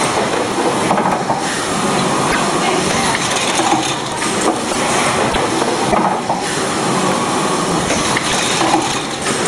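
Automatic chocolate snack-pack packing machine running: a loud, steady mechanical clatter and hiss with scattered clicks.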